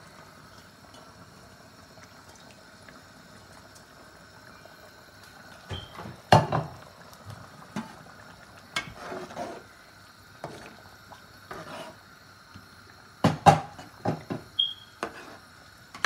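Metal clanking and knocking against a steel cooking pot, a run of irregular knocks with the sharpest clanks about six and thirteen seconds in. Under them is the faint steady hiss of spiced chicken stock simmering in the pot.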